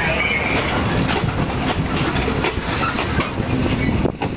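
Passenger train coaches passing close by on the adjacent track, steel wheels clattering over the rail joints in a fast, dense run of clicks. There is a brief lull near the end.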